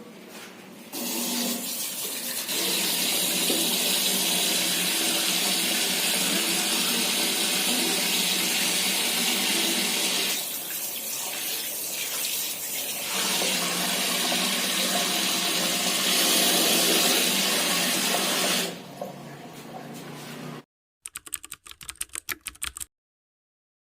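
Tap water running into a sink during handwashing before a clinical procedure. The flow sounds weaker for a few seconds in the middle and stops about nineteen seconds in.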